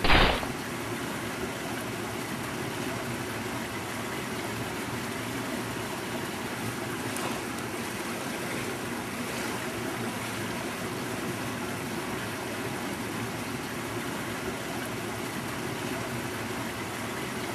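Steady rush of running water, with a short, loud burst right at the start.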